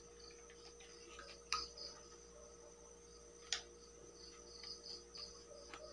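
A cricket chirps faintly and evenly, about four chirps a second. Two sharp plastic clicks from handling the PVC toy gun stand out, about one and a half seconds in and again two seconds later.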